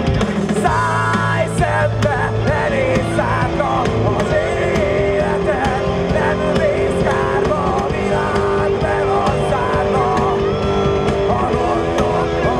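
Rock band playing a punk-metal song live: distorted electric guitars, bass guitar and a drum kit, with a lead melody bending up and down over the steady rhythm.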